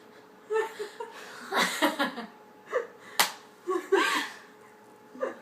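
Girls giggling in short bursts, with one sharp slap about three seconds in.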